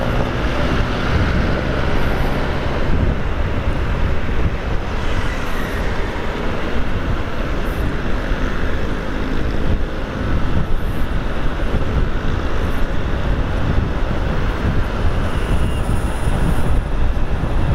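Motorcycle engine running while riding at speed, heard together with a steady low rumble of wind and road noise.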